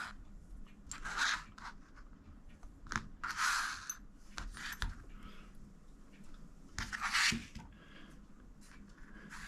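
Rifle parts being handled: a sharp click at the start, then scattered short scrapes and clicks, the loudest about a second in, around three and a half seconds and about seven seconds in.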